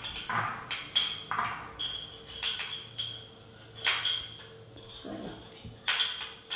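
Repeated clinks of a kitchen utensil against a dish, about a dozen irregular taps, each with a brief high ring after it; the loudest comes about four seconds in. The clinks come as chopped salad ingredients are added to a bowl.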